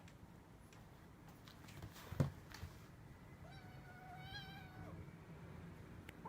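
A kitten gives one high, drawn-out meow lasting about a second and a half, a little after halfway through. Before it, about two seconds in, comes a single sharp tap.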